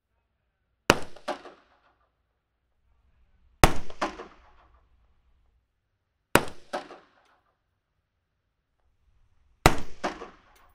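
Four single AR-15 rifle shots a few seconds apart, each a sharp crack followed by a trail-off of about a second. They are recorded from about two feet from the barrel, the first three through a dynamic microphone and the last through a condenser microphone.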